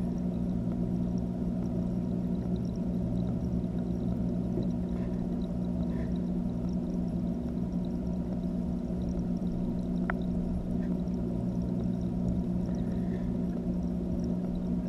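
Steady low mechanical hum of an aquarium filter, with running water, picked up underwater through a camera's waterproof housing. One brief click about ten seconds in.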